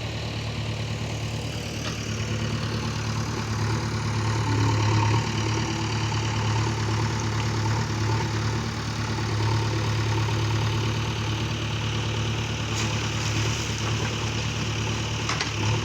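Small engine running steadily at a constant speed, with a strong low hum, from a machine working on sand fill.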